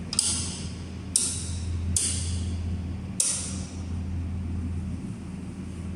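Legrand wall rocker light switches clicking four times as they are pressed, switching the lights off, over a steady low hum.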